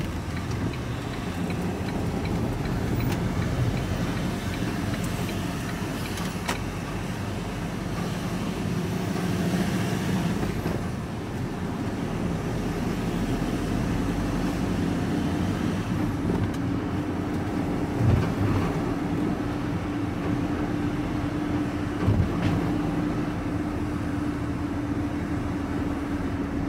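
Engine and road noise heard from inside a moving vehicle's cabin, steady throughout. A steadier engine hum sets in about two-thirds of the way through, and there are two brief thumps near the end.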